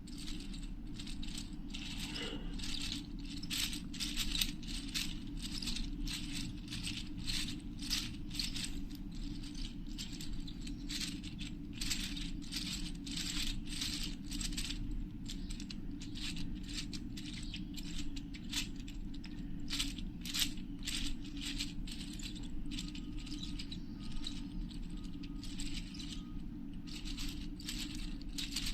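3D-printed plastic gear sphere being turned, its gears giving a steady run of irregular clicks and rattles. A low hum runs underneath.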